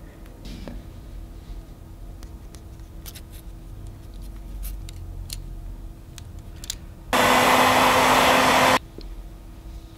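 Heat gun blowing hot air to soften the frame protector's adhesive: a steady loud rush with a low hum, switched on about seven seconds in and cutting off sharply after about a second and a half. A few faint ticks come before it.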